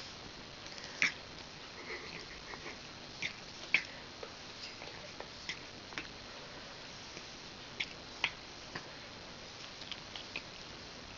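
A sick cat sneezing: short, sharp sneezes about a second in, a pair close together a little past three seconds, and another pair about eight seconds in, with fainter clicks in between.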